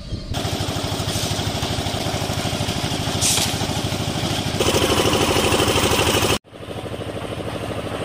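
Portable concrete mixer's engine running with a fast, even beat. It grows louder a little past halfway and drops out for an instant about six and a half seconds in.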